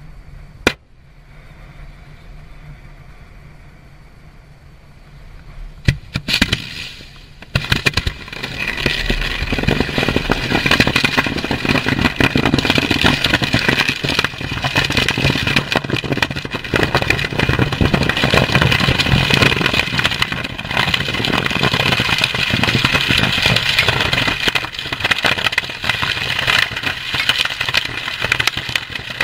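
Munitions disposal burn of a pile of unserviceable ammunition, including 20mm and 5.56 NATO cartridges. After a few quiet seconds, sharp bangs come about six and seven and a half seconds in. From about eight seconds on there is a loud, continuous rushing hiss thick with rapid crackling pops as the propellant and cartridges cook off.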